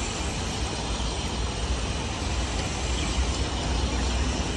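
Steady outdoor background noise with a constant low rumble.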